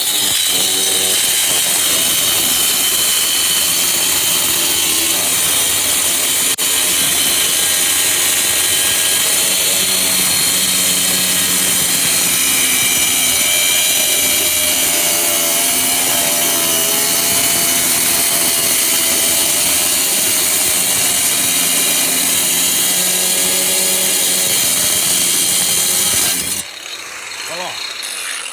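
Cheap electric angle grinder with a cutting disc running under load, grinding through metal with a steady high-pitched screech and a motor pitch that wavers as the disc bites. About two seconds before the end it is switched off and winds down, fading away.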